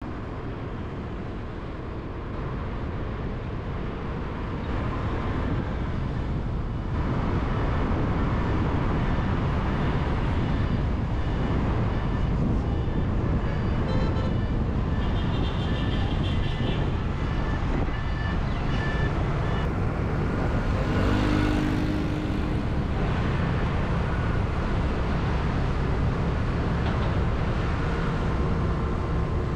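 Road traffic noise: a steady mix of engines and tyres that grows louder over the first several seconds, with a few short tones around the middle.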